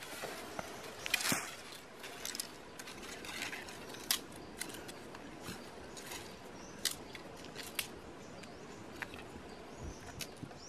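Dry branches and twigs being handled: a crackling rustle about a second in, then scattered sharp snaps and clicks of dry twigs over a steady outdoor hiss.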